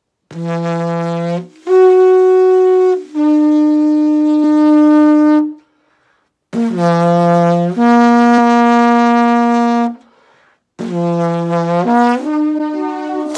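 A very long homemade tube blown like a brass horn with buzzing lips, playing three short phrases of held notes. Each phrase steps between a few fixed pitches, like a bugle call.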